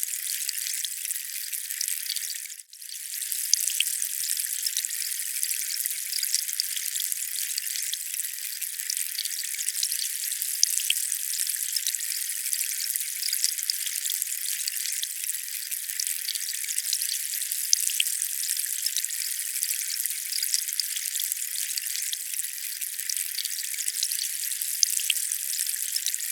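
Steady, thin hissing water noise with no low rumble, full of tiny drip-like crackles. It drops out briefly about three seconds in, then fades back up.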